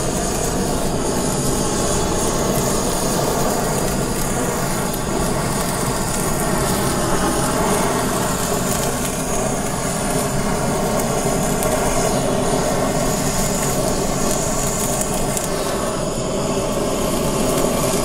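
Handheld butane torch burning steadily as it sears the raw beef slices on top of a sushi roll.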